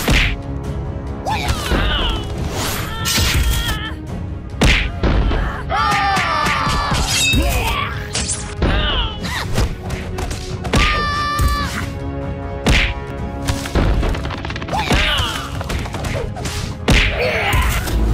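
Cartoon fight sound effects: a series of hits and thuds mixed with short pitched cries and grunts from the characters, over background music.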